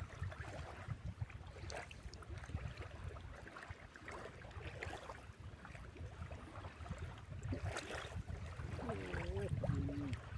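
Low rumble of wind on the microphone with gentle water sounds at sea and scattered small knocks; a faint voice shows near the end.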